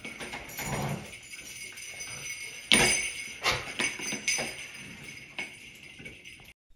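Dog potty-training door bells, a strap of metal jingle bells hung from a door handle, jingling several times as a golden retriever puppy bites and tugs at them. The sharp jingles come in irregular shakes about a second apart, each leaving a ringing tail.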